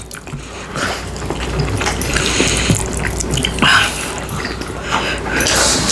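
Close-miked wet chewing and lip-smacking of people eating, an irregular stream of short smacks and clicks.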